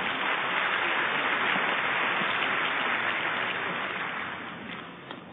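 Crowd applauding after a point, a steady clatter of clapping that fades away over the last second or so.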